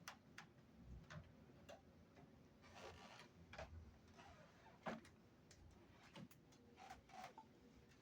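Near silence: quiet room tone with faint, irregularly spaced clicks and a few soft rustles.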